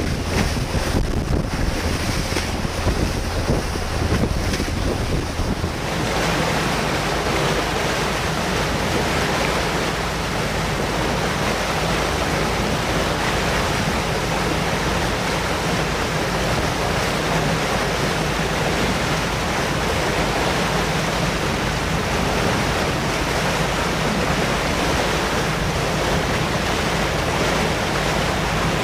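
Water rushing and splashing along the hull of a Yaroslavets-type motor boat under way, its bow wave and wake churning, with wind buffeting the microphone and a low steady engine hum underneath. The sound shifts once about six seconds in, then stays steady.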